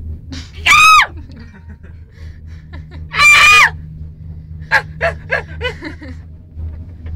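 Two loud, high-pitched shrieks about two and a half seconds apart, the second held briefly at one pitch, then a run of short vocal bursts, over the steady low hum of a moving gondola cabin.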